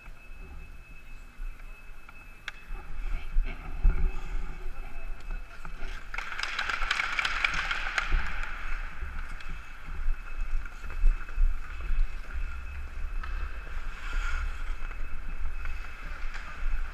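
Hockey skate blades scraping and carving on rink ice, picked up by a helmet-mounted action camera, over a steady low wind rumble on the microphone. The scraping hiss grows loudest about six to nine seconds in, as the skater gets moving.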